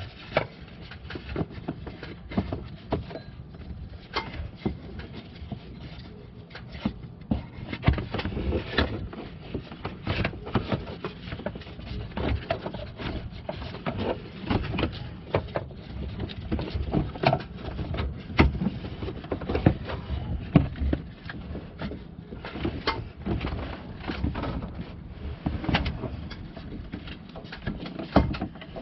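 Irregular knocks, taps and rubbing scrapes as a ribbed rubber serpentine belt is fed by hand around the engine's accessory pulleys, with the engine off.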